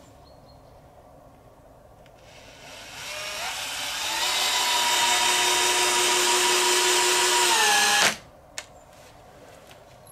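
Cordless drill-driver driving a wood screw into a wooden wall board. The motor winds up from about two seconds in, holds a steady high whine, dips slightly in pitch and stops abruptly about eight seconds in, followed by a single click.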